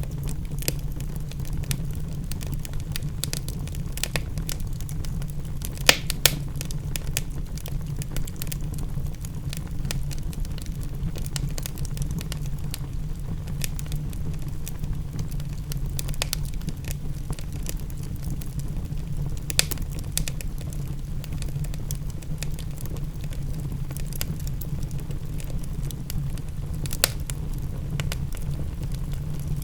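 Wood fire crackling in a fireplace: steady small crackles over a low, even rumble, with a few sharper pops, two close together about six seconds in and single ones near twenty and twenty-seven seconds.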